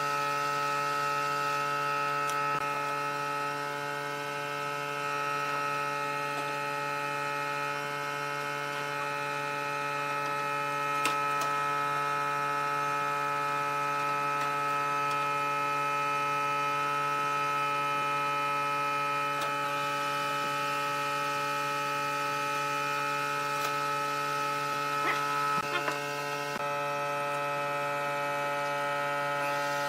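A steady, unchanging hum made of several fixed tones, with a few light clicks and taps about eleven seconds in and again around twenty-five seconds in.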